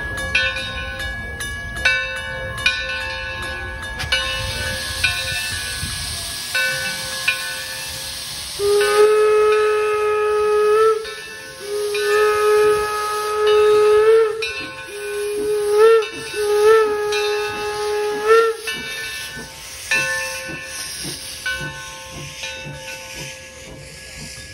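0-6-4T Torch Lake steam locomotive's chime whistle sounding a series of blasts, the first two long and the rest shorter, over a steady hiss of escaping steam.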